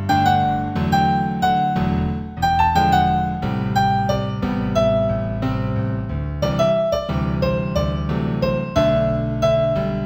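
Gentle new-age piano music in G major: a slow melody of single notes moving over held chords.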